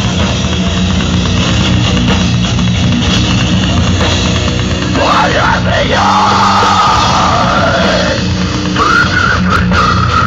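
Heavy rock song with distorted guitars and a drum kit; about halfway through, a high held melody line comes in over the band.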